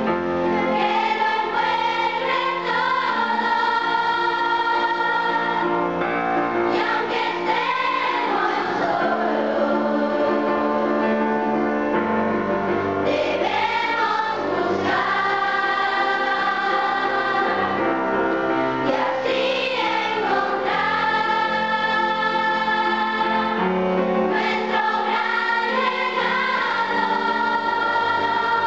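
Youth choir singing in parts with piano accompaniment, in long phrases of several seconds with held notes that swell and turn in pitch.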